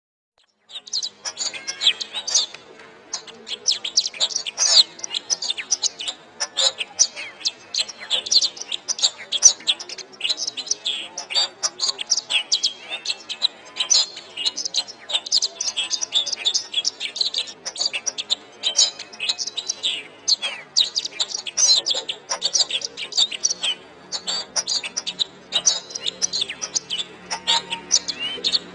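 Domestic canary singing a long, fast song of rapid chirps, trills and short whistles, starting after a brief silence at the very beginning.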